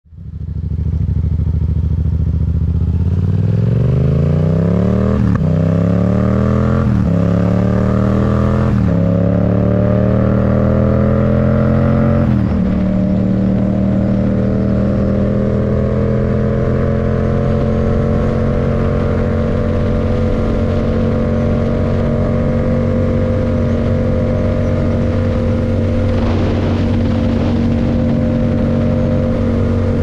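Yamaha MT-07 parallel-twin engine through a Mivv Delta Race aftermarket exhaust, accelerating hard. Its pitch climbs and drops sharply at four upshifts in the first dozen seconds. It then settles to a steady note while cruising at constant speed.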